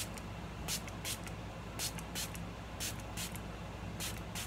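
Pump spray bottle of rose water facial mist being pumped at the face: about seven short hisses of mist, mostly in quick pairs.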